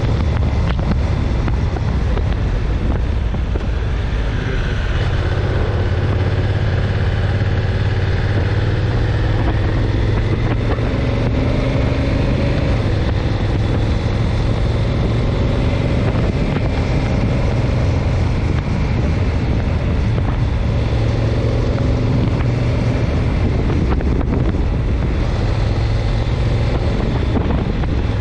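Motorcycle engine running under way, its pitch slowly rising and falling with the throttle, over steady wind rushing across the handlebar-mounted microphone.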